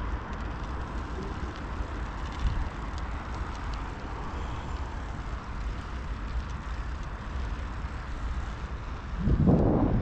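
Steady low rumbling noise with a hiss above it, swelling into a louder rumble about nine seconds in.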